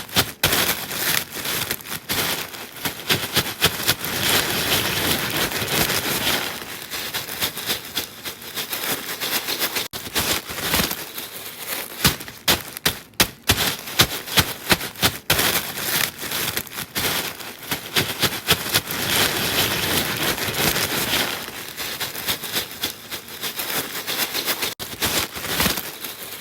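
Irregular crisp crackling and sharp clicks, coming in dense runs with stretches of rustling crackle between them.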